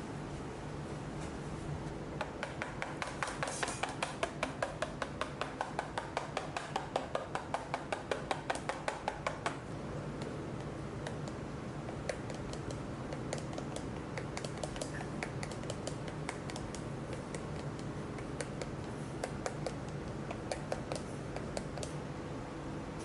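Rapid, even knife chopping on a cutting board, about four strokes a second, for several seconds. Then scattered single knocks and taps over the steady hum of kitchen equipment.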